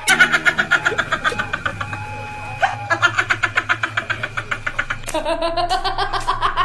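High-pitched cackling laughter in fast, even 'hi-hi-hi' pulses, about eight a second, the cackle of the kuntilanak ghost; the pitch climbs from about five seconds in.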